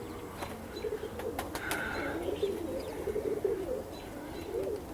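Domestic pigeons cooing steadily in low, warbling calls, with a few faint clicks in the first two seconds.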